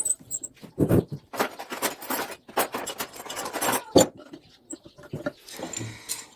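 Irregular metallic clinks, knocks and rattles of a washing-machine motor and hand tools being handled, with a sharp knock about four seconds in.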